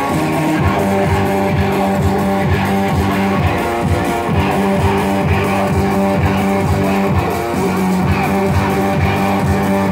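Band music with electric guitar and bass guitar playing a steady, fast-pulsing rhythm.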